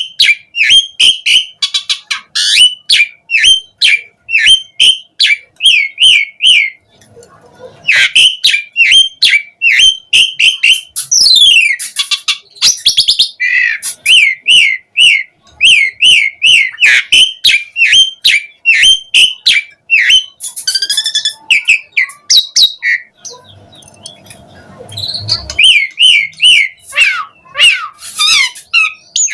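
Asian pied starling singing loudly and without let-up: quick runs of short, sharp chirps several to the second, mixed with sweeping whistled phrases. The song breaks off twice for about a second, once about a quarter of the way in and again about four-fifths of the way through.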